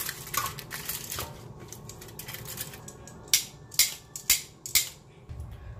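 Baked chicken pieces being turned over on a foil-lined baking tray: aluminium foil crinkling and crackling, with four sharp clicks about half a second apart in the second half.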